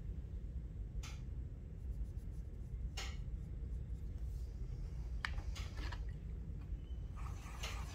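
Quiet handling of a paintbrush over a steady low hum: a few light taps, then the brush rubbing and scrubbing near the end as it is rinsed and worked over a tempera paint cake.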